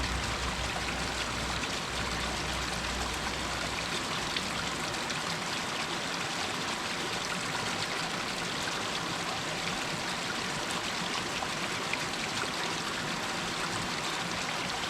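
Water running down over rocks in a steady, even rush, with a low rumble under it for the first few seconds.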